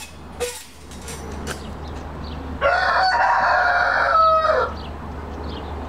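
A rooster crowing once, a single cock-a-doodle-doo held for about two seconds starting about two and a half seconds in, its last note dropping at the end. Faint clicks come before it, over a steady low hum.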